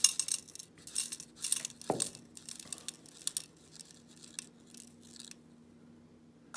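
Small gold nuggets and flakes tipped off a paper into the clear tray of a digital scale: a run of rapid, light clinks and rattles, loudest at first, that thins out and stops a little over five seconds in.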